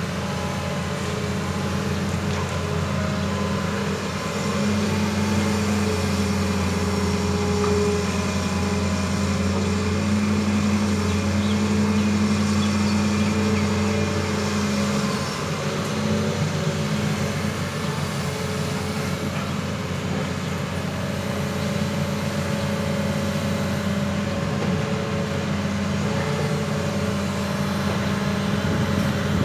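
Hitachi Zaxis 200 crawler excavator's diesel engine running steadily as the machine digs, a deep, even drone. It grows a little louder from about four seconds in and eases back about halfway through.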